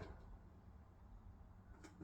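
Hisense washing machine on a wool cycle pausing between drum turns: its churning motor sound stops at the start, leaving near silence with a faint low hum and a light click near the end.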